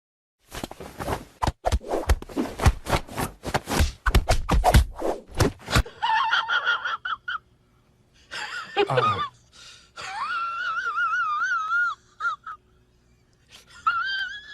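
Several seconds of rapid clicking and rustling, then a cat's high, wavering meows, one of them long with a quick warble in its pitch.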